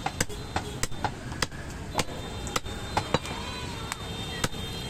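Sharp, irregular knocks of butchers' cleavers chopping goat meat on wooden chopping blocks, about a dozen strokes, over a steady low background rumble.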